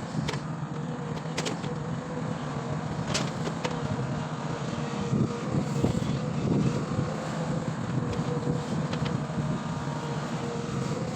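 Long-boom excavator's diesel engine running steadily, with a few sharp knocks in the first few seconds.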